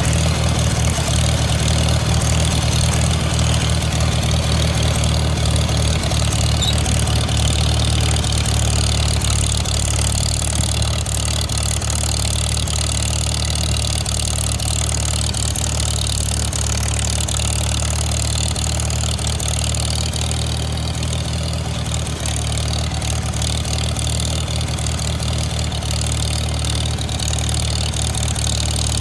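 1953 Farmall Super M's four-cylinder engine running steadily as the tractor drives along, heard close to its upright exhaust stack. It drops slightly in loudness after about ten seconds.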